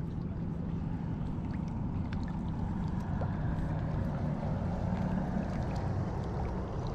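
Wind buffeting the microphone: a steady low rumble, with a few faint light ticks above it.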